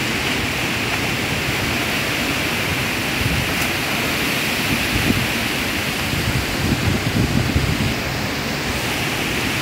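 Storm-force wind and driving rain through trees, a steady dense rushing hiss, with low gusts buffeting the microphone now and then, most around seven seconds in.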